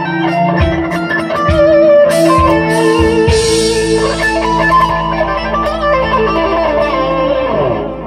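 Electric guitar played through a Framus Dragon amplifier: an improvised lead line with wavering, bending notes over held low notes, ending with notes sliding down in pitch as the sound dies away.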